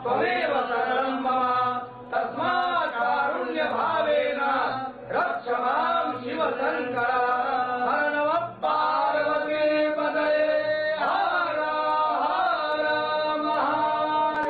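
Male voices chanting Sanskrit mantras in a Hindu puja, with brief pauses between phrases. About 8.5 s in, the chant settles into longer held notes.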